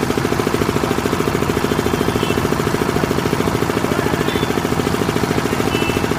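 An engine idling close by, with a steady rapid throb that keeps an even pace throughout.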